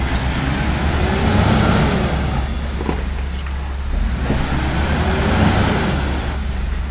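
A container truck's diesel engine revs up and eases off twice while the truck is stuck axle-deep in mud, straining to drive out. A faint high whistle rises and falls with each rev, over a steady low rumble.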